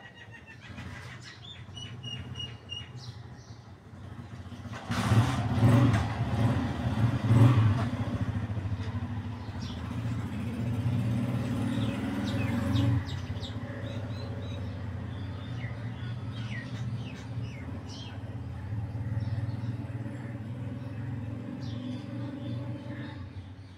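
A motor vehicle engine running steadily, growing louder about five seconds in and easing a little after about thirteen seconds, with birds chirping.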